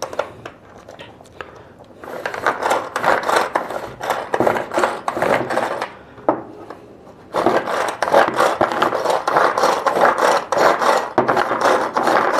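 Butterfly manual pull-cord vegetable chopper being worked: quick repeated pulls of the cord spin the blades in the jar through onion, tomato and green chilli, giving a rasping whir with each pull. It starts about two seconds in, stops briefly around six seconds, then goes on again.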